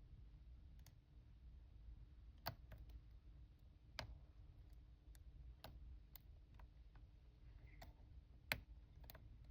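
Faint, irregular clicks of a hook pick working the pins of an aluminium-bodied Master Lock padlock under light tension while it is being single-pin picked. The loudest click comes near the end.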